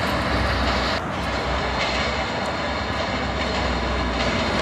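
Steady, loud rumbling roar of vehicle noise with a low hum underneath, a sound effect laid under the stop-motion shot of traffic and a passing train.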